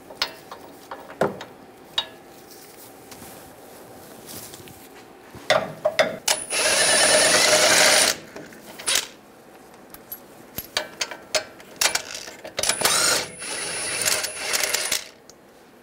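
Cordless impact wrench spinning out the 21 mm caliper bracket bolts on a truck's front brake, in two runs: one about six seconds in lasting about two seconds, and a second, quieter one from about twelve to fifteen seconds. A few sharp metal clicks from the hand wrench on the bolt come near the start.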